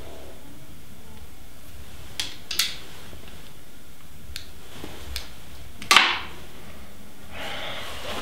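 Steady low room hum with a few light clicks about two seconds in, as a pair of eyeglasses is taken off and set down on a shelf, then fainter ticks and a sharper knock about six seconds in.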